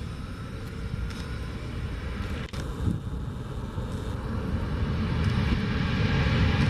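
Airbus A321neo jet engines, heard from the ground as the airliner lands: a steady rushing noise that grows louder through the second half.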